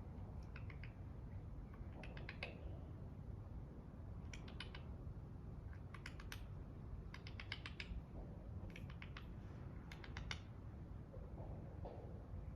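Eurasian tree sparrows chirping: quick runs of three to six short, sharp chips, repeated about every one to two seconds over a low steady hum.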